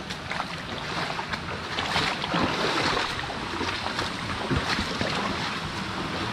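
Feet wading and splashing through a shallow, rocky creek, irregular splashes over the steady rush of flowing water, a little louder from about two seconds in.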